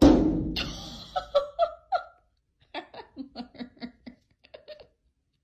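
A person laughing in a run of short bursts, about six a second, after a loud sudden sound at the start that fades over about a second.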